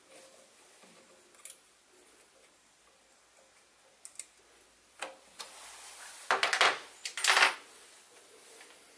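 Small metal parts and a hex key clicking and clinking as the handle is taken off the mini lathe's compound slide feed screw. Near the end come two louder metal clatters about a second apart.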